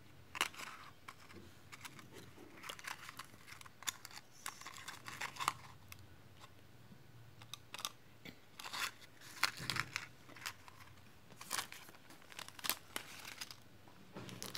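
Thin plastic packaging and card being handled, with the crinkle and rustle of a clear plastic sleeve as a pen is taken out of it. The crackles come in short, irregular bunches.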